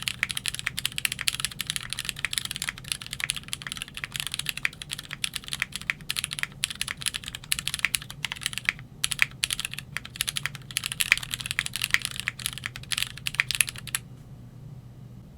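Fast typing on a Keychron Q3 mechanical keyboard fitted with a polycarbonate plate and lubed Cherry MX Black Hyperglide linear switches: a rapid, continuous stream of keystrokes. There is a brief break about nine seconds in, and the typing stops about a second before the end.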